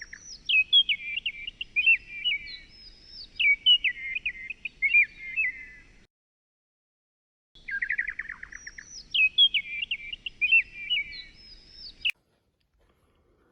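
Bird song: a quick trill followed by a run of high, varied chirps, the same phrase heard twice with a gap of complete silence between.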